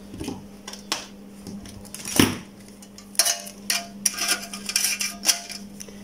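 Scattered metallic clinks and taps as the electric heater's sheet-steel reflector bowl and its terminal connector are handled and adjusted into place, thickest a little past the middle. A faint steady hum runs underneath.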